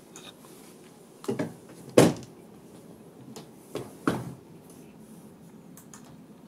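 A 2-litre plastic tea bottle being handled and turned over on a table: a few short knocks, the loudest about two seconds in and two more around four seconds in.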